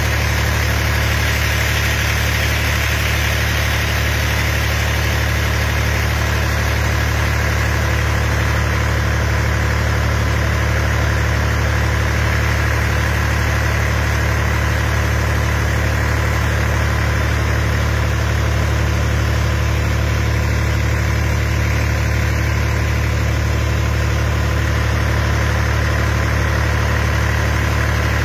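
An engine running steadily at one constant speed with a deep hum, over the hiss of water spraying from impact sprinklers.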